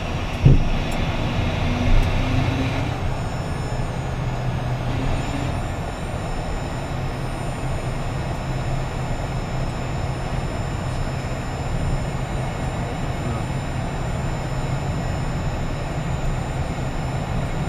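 Cockpit noise of a taxiing Embraer Phenom 100: its twin Pratt & Whitney PW617F turbofans at low power make a steady hum with a thin high whine. There is a sharp thump about half a second in and a lighter one near two seconds.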